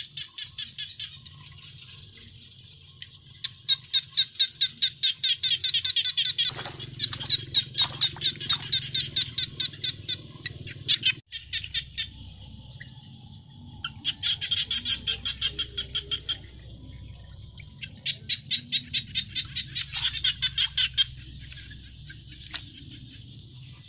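Animal calls: bouts of rapid, high-pitched pulsed chirping, each lasting a few seconds with short pauses between, about four bouts in all.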